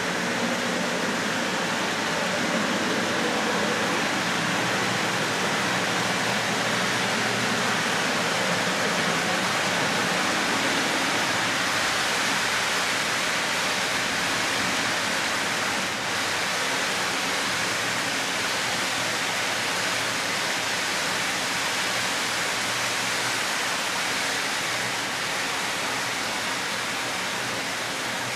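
H0-scale model trains running on the layout's track: a steady rolling whir of metal wheels on rails and electric locomotive motors, a little louder in the first half.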